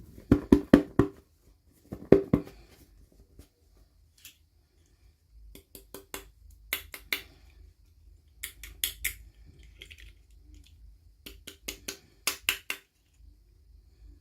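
Plastic toy packaging handled and opened by hand: short clusters of rapid, sharp crinkles and clicks with brief pauses between them, the loudest in the first couple of seconds.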